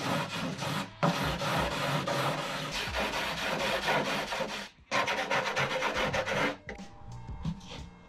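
A gel-coated fibreglass fairing panel being sanded: a steady rasping scrape with a brief break just before a second in and another near the middle. It stops about two-thirds of the way through, leaving faint background music.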